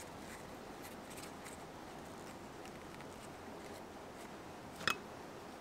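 Soft handling of a leather strip, with faint rustles and small clicks over a steady hiss, and one sharp click near the end.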